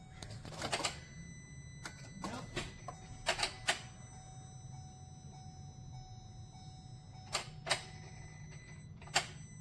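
Hyundai-Kia compact SUV that will not start: several sharp clicks, some in quick pairs, come as the start is tried again, with no engine cranking and no engine catching. A faint steady high whine runs underneath.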